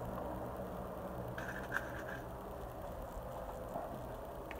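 Steady low background hum with a few faint light clicks and a brief scrape about one and a half seconds in.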